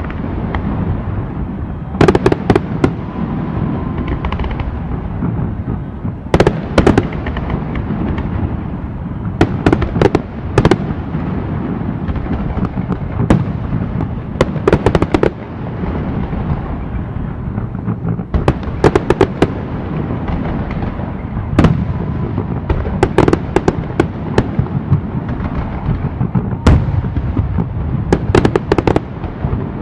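Aerial fireworks bursting overhead, clusters of sharp bangs every few seconds over a steady low rumble.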